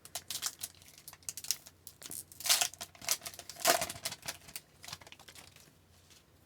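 Trading cards and a foil pack wrapper being handled: light card clicks and rustling, with two louder crinkling swishes in the middle, then quiet near the end.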